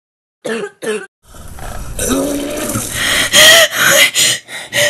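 A person coughing. Two short coughs come about half a second in. Then a long, harsh coughing fit builds, with the loudest coughs in a string of separate bursts over the last two seconds.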